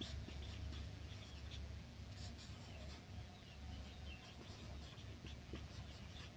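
Marker pen writing on a whiteboard: faint, irregular squeaks and scratchy strokes over a low steady hum.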